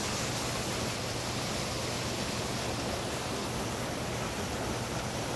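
Whitewater of a waterfall rushing steadily over rocks.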